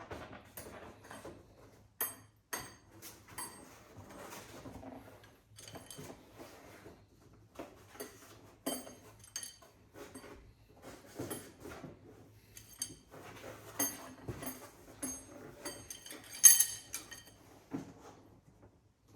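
Metal tools and engine parts clinking and knocking at irregular intervals, with a high metallic ring after the sharper hits and one louder clank near the end, as bolts and pushrods come out of a tractor engine being stripped down.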